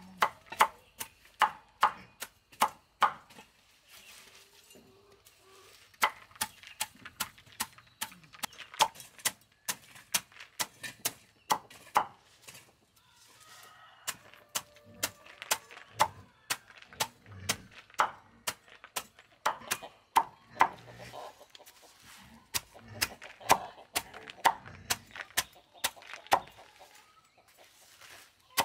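Machete chopping leafy greens and vines on a round wooden chopping board: quick knocks, about three a second, in runs with short pauses.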